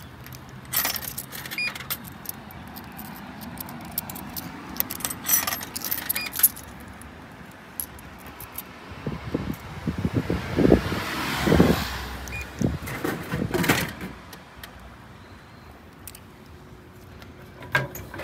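Coins clinking one by one into a Japanese drink vending machine's coin slot. About ten seconds in come heavier thuds and rattling as a can drops through the machine into the dispenser tray.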